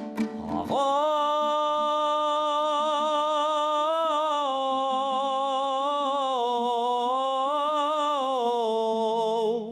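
A singer holds one long note in a Kazakh folk song for about nine seconds. It wavers slightly, steps up a little midway and falls near the end, over a steady lower accompanying tone.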